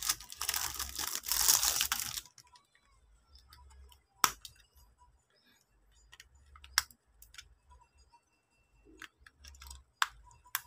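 Plastic wrapping crinkling and tearing as it is pulled off a TV remote control for about two seconds. Then small sharp plastic clicks and knocks as batteries are fitted into the remote's battery compartment, the loudest about four, seven and ten seconds in.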